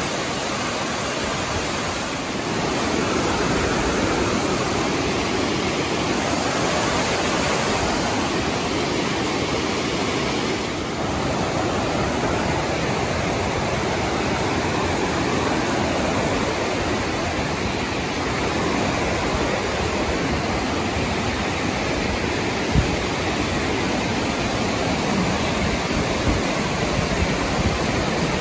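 Walupt Creek Falls, a large cascading waterfall, rushing in a loud, steady roar of falling water. A single sharp knock sounds about two-thirds of the way in, with a few fainter ones near the end.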